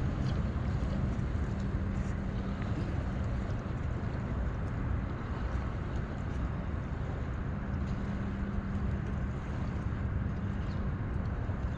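Steady wind and water noise at a bay shoreline, with a low hum that drops out between about 3.5 and 7.5 seconds in.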